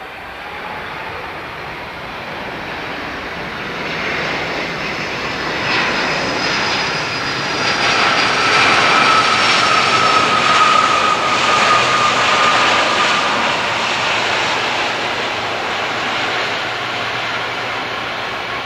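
Jet airliner engines at takeoff thrust, from a Boeing 767 on its takeoff roll and a Boeing 777-300 powering up for takeoff. A rush of engine noise with a high fan whine that drops slightly in pitch swells over the first ten seconds or so, then slowly eases.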